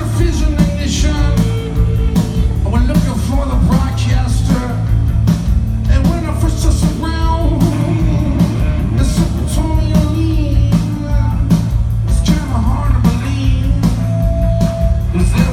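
Live rock band playing a loud, driving song with electric guitar, bass and drums on a steady beat, with a sung lead vocal over it.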